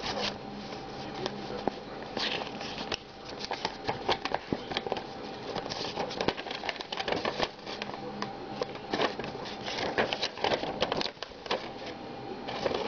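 Paper instruction leaflet rustling and crackling as it is unfolded and handled, in irregular bursts of crinkles with a brief lull about three seconds in.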